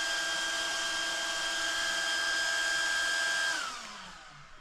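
Small electric cooling fans on a Traxxas XRT RC truck whirring with a steady high whine. About three and a half seconds in they spin down, falling in pitch and fading out as the truck is powered off.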